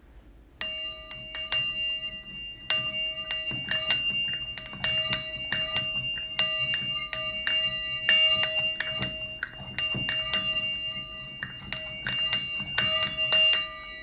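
Brass bell hung in a horseshoe stand, rung by tugging its clapper cord: quick, uneven strokes, several a second, all on the same clear pitch. There is a brief pause near the end, and the last strokes ring on as they fade.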